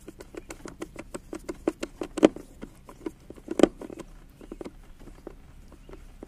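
Hands working at the ATV's starter relay among its plastic panels and wiring: an irregular run of small clicks and taps, with two louder knocks about two and three and a half seconds in.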